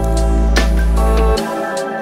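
Background electronic music: a deep held bass note under a steady synth chord with light hi-hat ticks. The bass note drops out about one and a half seconds in.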